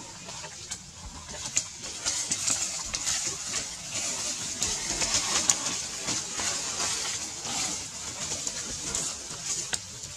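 Outdoor forest ambience: birds calling over a steady high hiss, with scattered short clicks and rustles.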